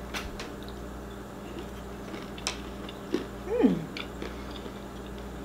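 Quiet chewing of crunchy Stoka keto bars, with faint scattered crunches over a steady low hum. About three and a half seconds in there is a short hum of the voice that rises and then falls, like an appreciative "mm".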